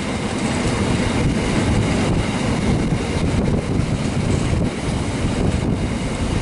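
Empty grain hopper wagons of a freight train rolling past, a steady rumble of wheels on rail, with wind buffeting the microphone.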